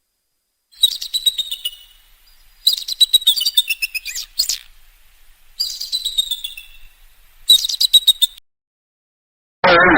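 A songbird singing four phrases of rapid trilled notes, each phrase sliding down in pitch, with short silences between them. Just before the end a louder, different sound cuts in.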